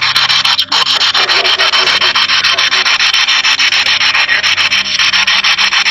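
Spirit box sweeping through radio stations: loud continuous static chopped into rapid, even pulses, with faint snatches of broadcast sound wavering through it. It breaks off for an instant about two-thirds of a second in.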